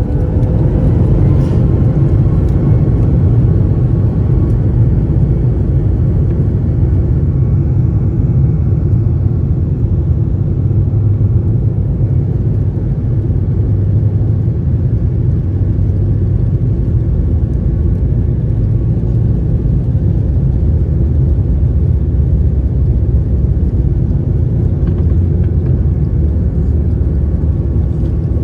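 Airliner's twin jet engines at takeoff thrust, heard from inside the cabin: a loud, steady low rumble during the takeoff run and climb.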